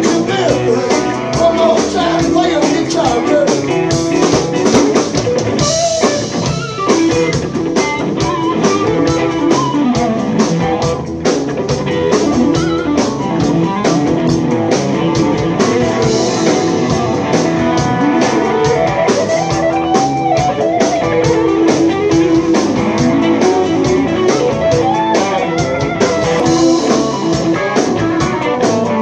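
Live blues-rock band: an electric guitar plays lead with notes that glide up and down, over drums and bass keeping a steady beat.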